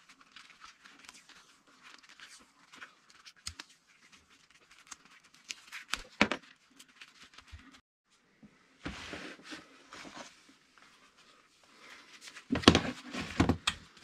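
Black electrical tape being pulled off the roll and wrapped around a small push switch: faint crackling and rustling with scattered small clicks and a sharper knock about six seconds in. Louder knocks and rustling from handling the wires and plugs near the end.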